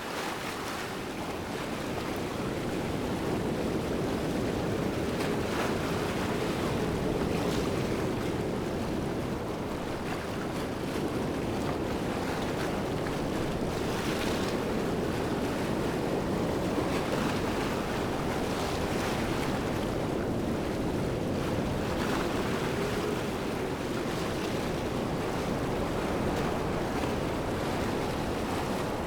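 Steady rushing water of a waterfall, an even wash of noise that fades in at the start and then holds with faint swells.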